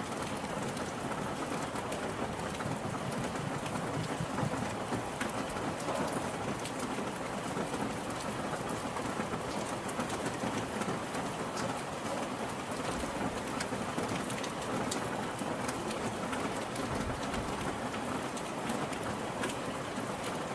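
Steady rain falling on a surface, with scattered individual drops ticking through it.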